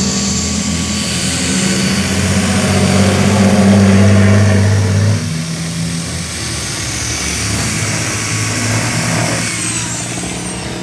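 Hand-held corded electric drill running, a steady motor hum that cuts off abruptly about five seconds in, then runs again more quietly.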